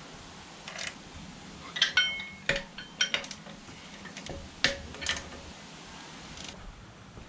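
Metal hand tools and engine parts clinking and clicking, about a dozen sharp metallic knocks spread out, a few ringing briefly; the loudest come about two seconds and four and a half seconds in.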